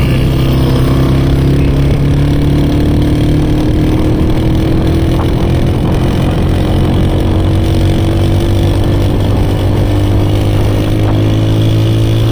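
A vehicle engine running steadily, its pitch rising slowly.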